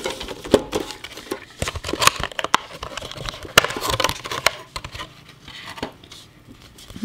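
Clear plastic packaging crinkling and rustling as it is handled and pulled at, with scattered sharp snaps and clicks. It grows quieter in the last couple of seconds.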